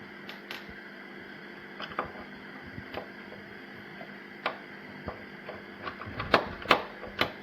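Screwdriver working the screws that secure the floppy drive inside a Commodore 65 prototype: irregular small clicks and taps, with a few sharper clicks near the end. The screws are a little stuck with age.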